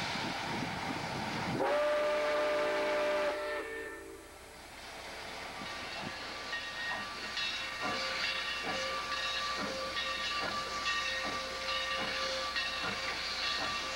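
Southern Pacific 786, a 2-8-2 Mikado steam locomotive, blows its steam whistle in one loud chord of about two seconds. Then its exhaust chuffs at roughly two beats a second amid steam hiss, under a fainter whistle note held for several seconds.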